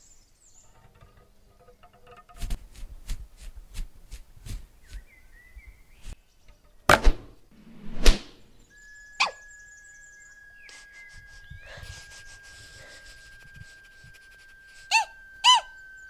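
Hand-made Foley sound effects: a run of light clicks and taps, two loud whooshes about a second apart, and a sharp click. Then a long steady whistle-like tone holds to the end, with two short squeaks near the end.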